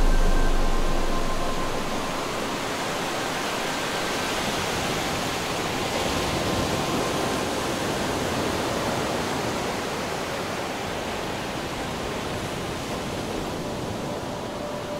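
Steady rushing noise, like wind or distant water, swelling slightly around the middle and easing off toward the end, with a few faint held tones beneath it.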